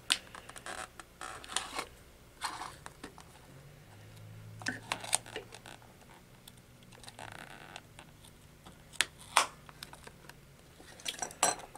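Scattered clicks and short scrapes as a small screwdriver pries the metal top cover off a Fujitsu 2.5-inch laptop hard drive and the drive case is handled on a wooden bench, the loudest a pair of sharp clicks about nine seconds in.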